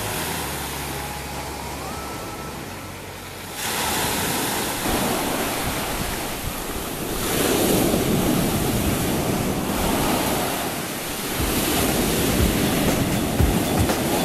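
Sea surf breaking and washing ashore in repeated swells, cutting in suddenly about three and a half seconds in after a quieter stretch with a few faint steady tones. Low wind thumps on the microphone near the end.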